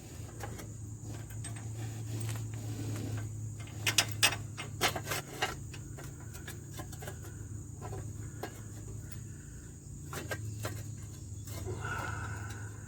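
A few sharp metallic clicks and clinks about four to five seconds in, from a hub assembly mounting bolt being fed in and started by hand. A steady high insect buzz and a low hum run underneath.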